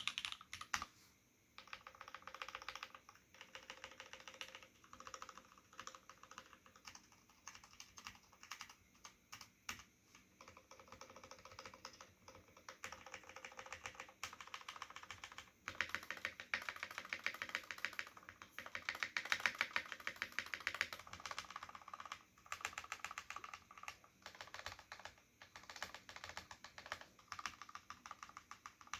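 Mechanical keyboard with lubed Cherry MX Black linear switches in an aluminium full plate and Cherry dye-sublimated keycaps, being typed on quickly and continuously. The keystrokes have the clacky sound typical of Cherry MX boards, with a couple of brief pauses.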